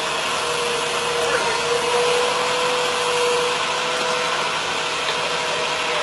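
Engine idling with a steady drone and a thin, even whine, with voices faintly in the background.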